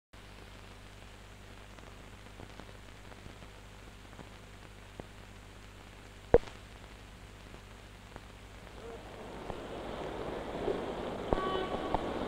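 Hiss and low hum of a 16mm film soundtrack running over the countdown leader, with faint crackle and one sharp pop a little past six seconds in. Over the last few seconds the noise grows louder and fuller.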